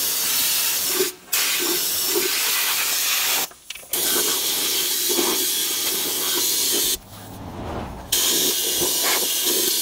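Undercoating spray gun hissing as it sprays rust-proofing oil, in four long bursts with brief pauses where the trigger is let go.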